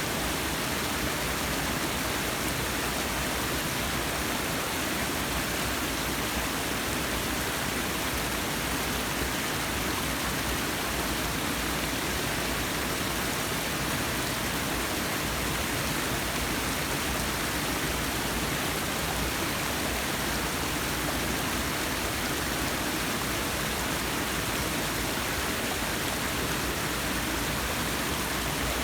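Forest waterfall: water pouring and splashing in a steady, even rush.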